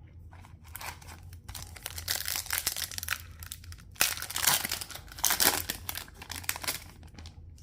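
Foil trading-card pack wrapper being torn open and crinkled, an irregular rustling with louder rips about halfway through and again a second and a half later.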